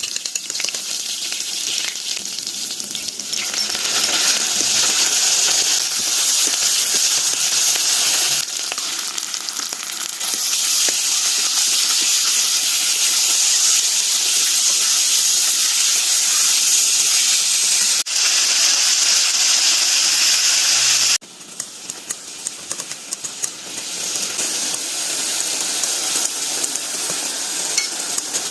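Pork sizzling as it fries in a hot pan, a loud steady crackling hiss whose loudness jumps up or down abruptly several times.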